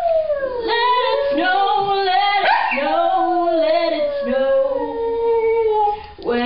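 Dog howling along to a song in long, wavering notes that slide down and up in pitch, with a short break near the end.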